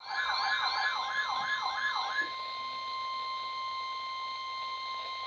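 Weather radio emergency alert: a fast warbling siren-like tone, about three sweeps a second, over the steady single-pitch warning alarm tone of a NOAA Weather Radio broadcast. The warble stops after about two seconds while the steady tone holds on.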